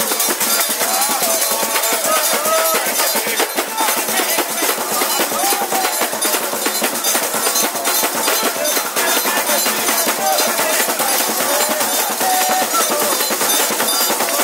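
Samba de roda played live: pandeiros and a metal triangle keep a fast, steady beat, with hand clapping and voices singing over it.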